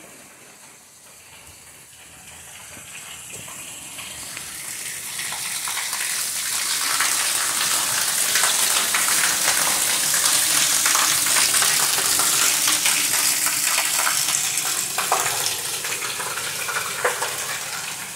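Heavy rain pouring down onto a concrete surface, a steady hiss that swells over the first several seconds and then holds, with a couple of short knocks near the end.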